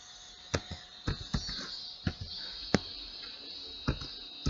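Keystrokes on a computer keyboard: about eight sharp clicks at an uneven pace, over a steady faint hiss.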